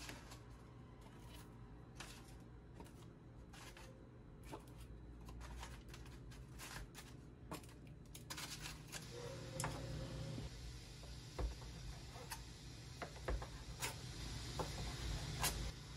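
Small clicks and taps of wooden chopsticks as fried seaweed rolls are picked up and set down on parchment paper. From about halfway through, a denser rustle of paper and packaging comes in, with more clicks.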